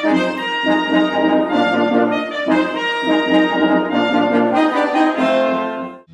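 Brass ensemble playing a lively instrumental passage of short, rhythmic chords, cut off abruptly near the end.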